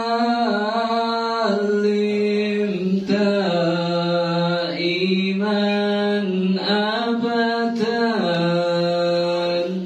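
A man's solo voice chanting Islamic sholawat praise (pujian) unaccompanied into a handheld microphone, with long held notes and ornamented turns of pitch.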